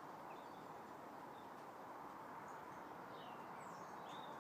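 A few faint, scattered bird chirps and short whistled glides over a steady outdoor background hiss.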